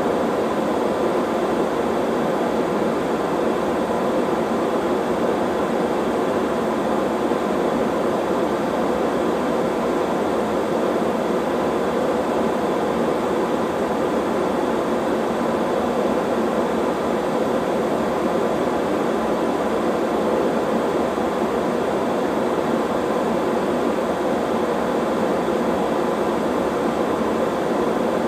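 Steady noise test signal played through the RCF PA loudspeakers into the hall, used to measure the phase alignment between the subwoofer and the main speakers.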